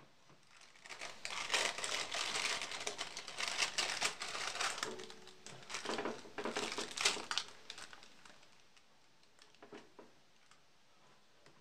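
Baking paper crinkling and rustling as it is handled and unfolded off fried chicken cutlets in a pan. It starts about a second in and dies away about eight seconds in.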